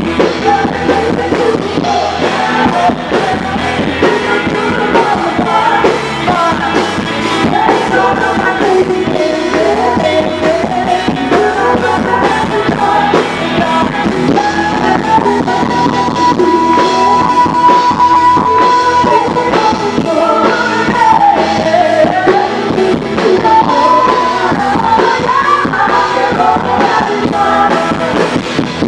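Rock and roll music with a singing voice, held on one long note around the middle.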